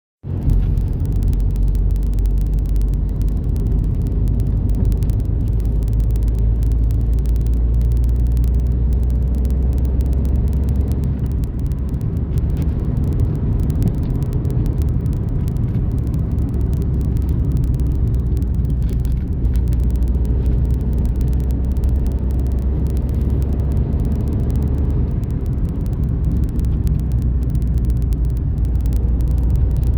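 Steady low road and engine rumble of a car driving at speed, heard from inside the cabin; it starts abruptly at a cut and runs on without change.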